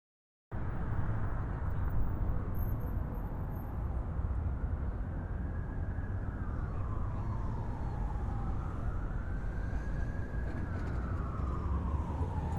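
City street ambience: a steady rumble of traffic, with an emergency vehicle's siren joining about a third of the way in, wailing slowly up and down.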